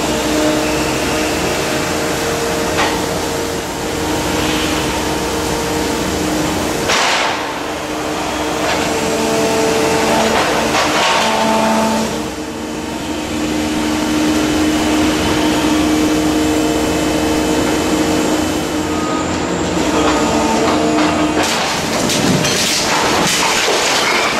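Brokk 160 remote-controlled demolition machine running, its hydraulics giving a steady whine whose pitch and level shift as the arm works, with occasional knocks. Near the end, brick and rubble crash down as a wall is broken out.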